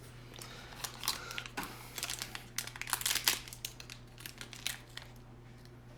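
Packaging of a mystery pin crinkling as it is handled and opened by hand: irregular crackles, busiest in the middle and thinning out after about four seconds, over a faint steady low hum.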